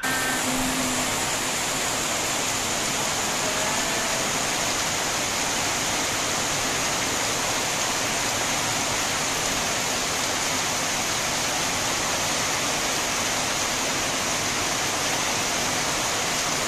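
Heavy tropical rain pouring down: a loud, steady, dense hiss of downpour.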